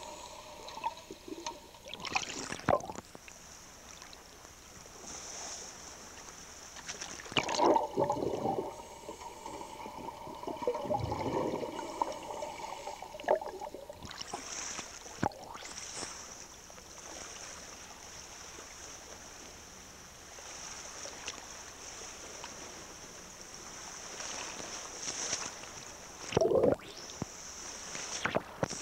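Bubbling and gurgling of a scuba diver's exhaled air, in bursts a few seconds apart over a steady hiss.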